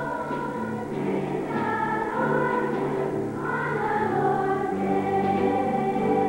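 A school choir singing together, with held low notes under the voices.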